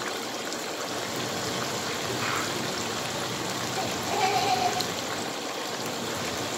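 Floured chicken pieces deep-frying in hot oil in a large pan, the oil sizzling and bubbling steadily.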